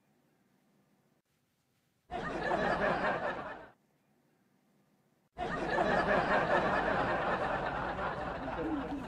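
Laughter in two bursts that start and stop abruptly: a short one about two seconds in and a longer one from about five seconds in.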